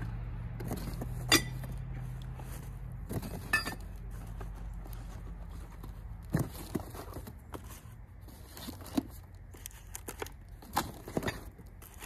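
Steel axe heads clinking and knocking against one another as they are handled and set back into a cardboard box: several separate sharp clinks, the loudest about a second in. A low steady hum runs under the first few seconds.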